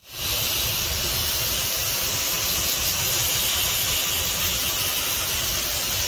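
Garden hose pistol-grip spray nozzle sending a steady hissing jet of water against the fins of an air conditioner's outdoor condenser coil, rinsing coil cleaner off a heavily dirt-clogged coil.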